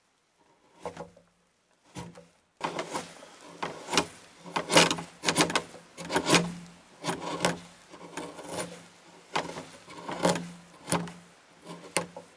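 A steel hand tool scraping and shaving along the edge of a chainsaw-cut log notch, in short repeated strokes. A couple of light strokes come first, then a steady run of strokes, about two a second, from about two and a half seconds in.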